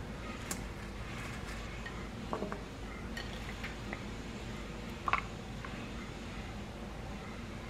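Quiet kitchen handling: vegetables dropped onto noodles in a stainless steel mixing bowl, with a few light clinks of dishes, the sharpest about five seconds in, over a steady low hum.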